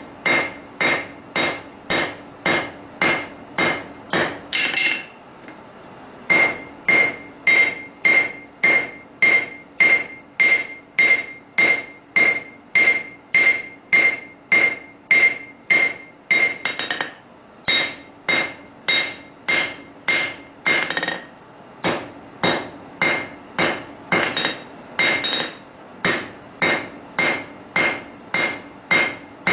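Hand hammer striking a steel vise jaw insert on an anvil, about two blows a second, each with a bright ringing ping, as the smith draws out the steel. The rhythm breaks briefly about five seconds in and again about twenty-one seconds in.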